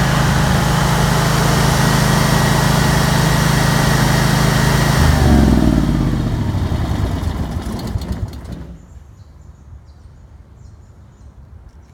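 Honda EM10000 generator's V-twin petrol engine running steadily at full speed, then shut off about five seconds in. Its pitch falls as it coasts down, and it stops about three seconds later, leaving faint ticking.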